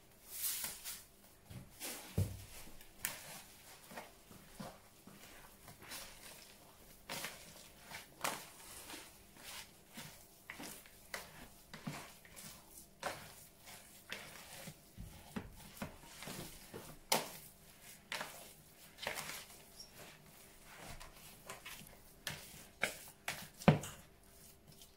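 Hands squeezing and kneading raw minced meat mixed with breadcrumbs in a plastic bowl: irregular soft squelches and small clicks, with one louder knock near the end.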